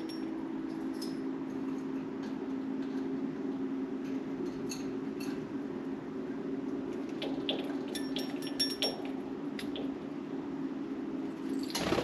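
Pet budgerigars chirruping contentedly: short, sharp high chirps and clicks, scattered and coming in small clusters a little before the middle and again past two-thirds of the way, over a steady low hum.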